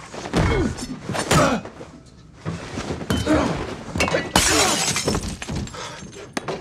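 Movie fight sound effects: a quick run of punches, knocks and thuds with short grunts between them, and glass breaking, the biggest smash about four and a half seconds in.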